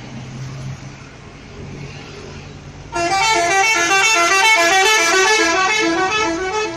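A bus's 'telolet' musical horn plays a fast tune of alternating notes, starting about three seconds in and much louder than what came before. Before it sounds, only a steady low engine hum and traffic noise are heard.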